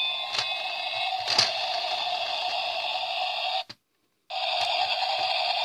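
Toy police helicopter playing an electronic sound effect through its small speaker: a steady noise that cuts off a little over three and a half seconds in and starts again about half a second later.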